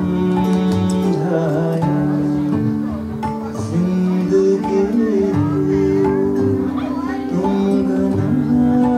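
Live music: a guitar played with plucked notes, with a man singing.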